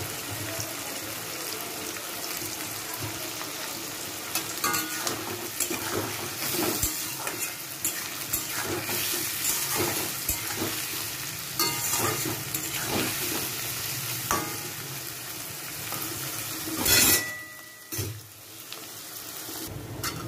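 Chopped capsicum, carrot and beans frying in hot ghee in a metal kadai, sizzling steadily, while a metal spatula scrapes and stirs through them in repeated short strokes from a few seconds in, with one louder scrape near the end.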